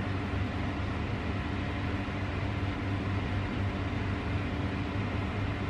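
Steady low mechanical hum over an even hiss, unchanging throughout: a constant background drone.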